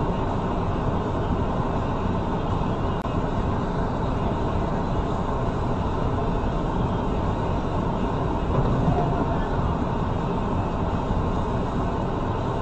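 Steady low rumble of vehicle and street-traffic noise picked up by a dashcam, with a momentary dropout about three seconds in.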